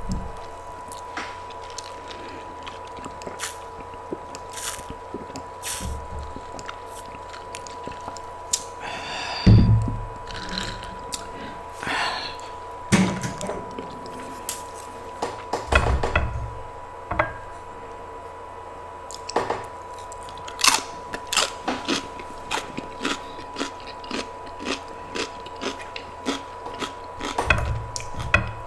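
Close-miked eating: a person chewing and biting into food, with many small sharp mouth clicks and a few heavier low thumps.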